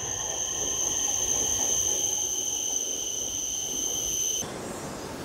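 An E7-series Shinkansen bullet train pulling into a station platform: a steady low rumble with a steady high-pitched whine. The sound cuts off abruptly about four and a half seconds in, leaving a quieter steady hum.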